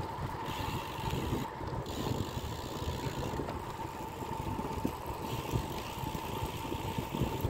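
Wind rumbling over the microphone of a camera on a moving bicycle, mixed with tyre noise on the road, with a thin steady whine running under it.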